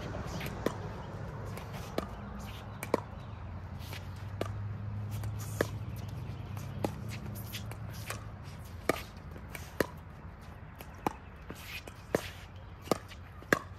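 Pickleball rally: a plastic ball popping off hard paddles and bouncing on the court, a series of sharp pops at uneven intervals that come quicker near the end.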